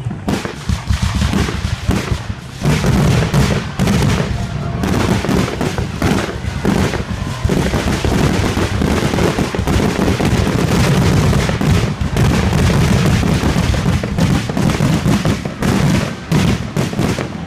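Aerial fireworks bursting in a rapid, nearly continuous barrage: overlapping booms and crackles with a heavy rumble underneath.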